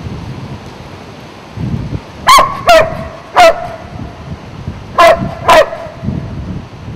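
A large golden retriever-type dog barks five times, three quick barks and then two more after a short pause.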